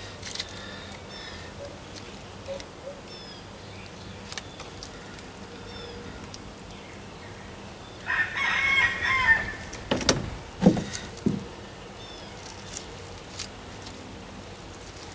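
A rooster crowing once, about eight seconds in, for about a second and a half. A few sharp knocks follow a couple of seconds later.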